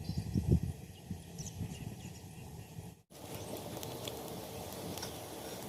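Pot of thuthuvalai rasam bubbling as it comes to the boil, with low irregular plops and a few small sharp ticks. A brief dropout about three seconds in, after which a steadier hiss runs on.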